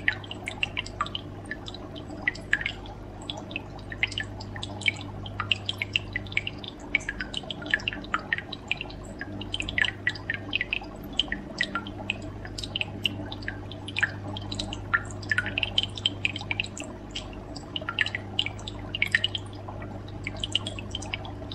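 Aquarium water dripping and bubbling in many quick, irregular plinks over a steady low hum.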